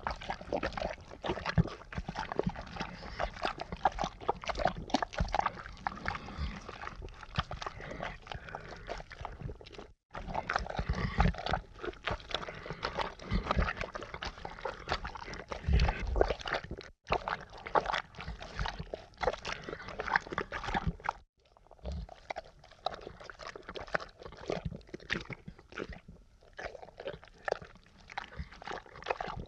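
A run of horror sound effects: dense, irregular clicking and crackling noises with an animal-like quality, broken by short silences about ten, seventeen and twenty-one seconds in.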